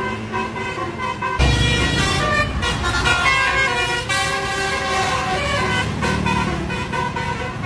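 Bus 'telolet' musical air horn playing a tune, several tones sounding together and changing pitch in steps. A low rumble joins in about a second and a half in.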